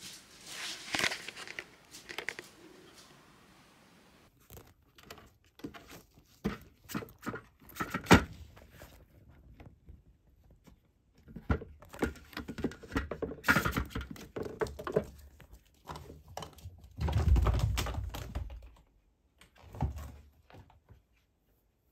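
Irregular small clicks, taps and rustles, with a sharp click about a third of the way in and a longer, dull low thump near the end.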